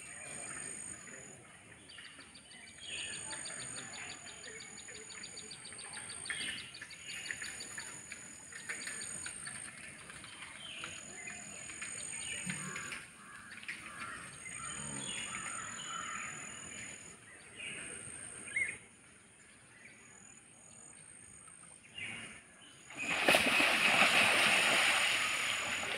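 Birds chirping, with a rapid trill a few seconds in; near the end a loud rush of splashing water as two fighting bulls lunge through shallow floodwater.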